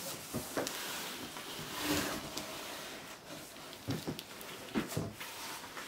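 Cardboard scraping and rustling as a boxed telescope is slid out of its outer shipping carton, with a few knocks of box against box about four and five seconds in.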